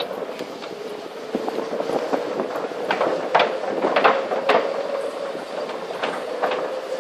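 A resort buggy rolling along, with a steady hum. From about halfway its wheels clack and rattle over the planks of a bridge deck, a few sharp knocks among them.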